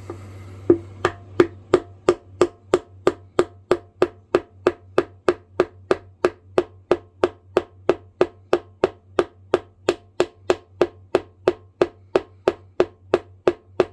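Small rubber mallet tapping a glued wedge into the handle of a miniature axe, seating it to lock the handle in the head: an even run of light taps, about three a second.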